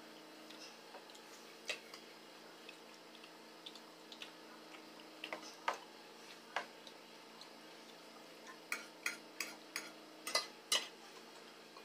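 Metal forks clicking and scraping against a glass bowl and plates in scattered taps, with a quick run of about seven clicks near the end, over a faint steady hum.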